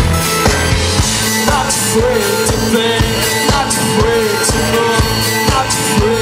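Rock music with a steady drum beat of about two hits a second, under a sung or wavering melodic line.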